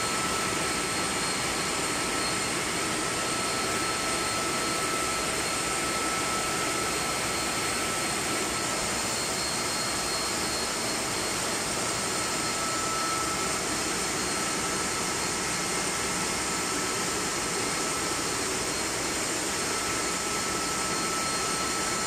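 Gas burner's combustion-air blower running steadily: an even rushing noise with a constant high whine, with the burner lit.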